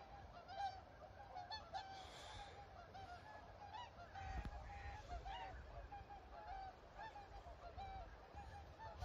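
A flock of swans calling: a continuous stream of short honking calls, several overlapping, with a brief low rumble about four seconds in.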